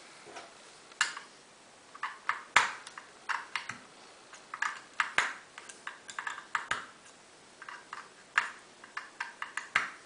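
Irregular sharp metallic clicks and taps, many in small clusters, as a self-impression decoding tool is fitted and worked in an open Auno 6+6 lever safe lock; two louder clicks stand out, about two and a half and five seconds in.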